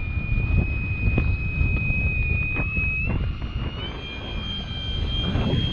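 RC foam model plane's motor and propeller whining steadily, the pitch stepping up twice, about three and four seconds in, as the throttle is raised. Underneath is a heavy low rumble.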